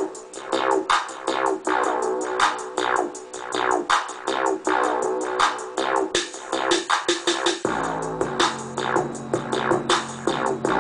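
Electronic music with a fast, steady drum-machine beat and synth, played loud through a PC's speakers; a deep bass line comes in suddenly about three-quarters of the way through.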